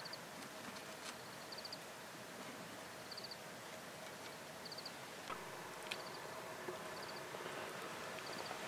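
A high chirp of three or four quick notes repeats about every second and a half against a quiet outdoor background. A few light clicks come from dry sticks being set under a small wood-burning camp stove.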